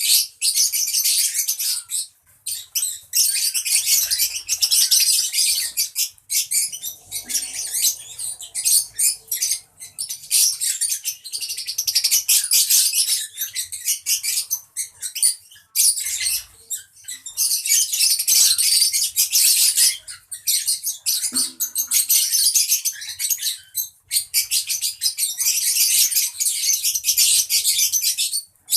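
A flock of lovebirds chattering: a dense, shrill stream of rapid high chirps and squeaks, broken by a few brief lulls.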